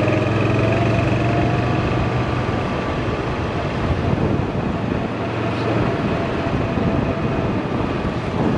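Golf cart driving along a paved lane: a steady hum and rumble, the low hum strongest in the first couple of seconds and again briefly near the middle.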